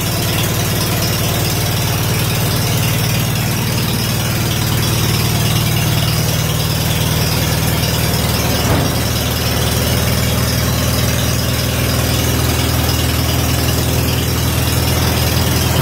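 1947 Farmall H tractor's four-cylinder engine idling steadily just after a cold start; the owner thinks it is missing on one cylinder.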